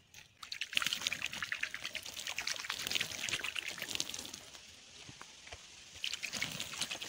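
Dry, crumbly garden soil being worked by hand: a dense run of gritty crackles and rustles as sown coriander seeds are mixed into the earth. The sound eases off a little past the middle and picks up again near the end.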